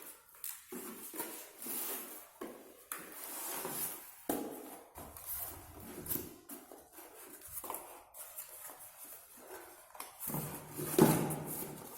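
A cardboard speaker box and its packing being opened and handled: irregular rustling, scraping and light knocks, with a louder knock or rustle near the end.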